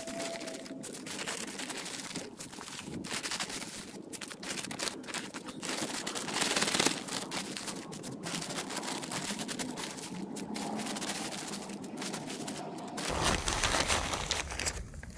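Sand being scooped with a plastic scoop from its crinkling packaging bag and tipped into a fabric parasol-base sandbag: continuous rustling, crinkling and gritty scraping with many small crackles.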